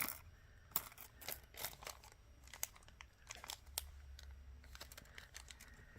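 Small bags of glass beads being handled: faint plastic crinkling with scattered light clicks.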